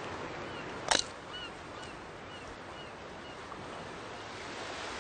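Steady outdoor hiss with faint high chirps repeating about twice a second, and a single short, sharp crack about a second in that stands out loudly above it.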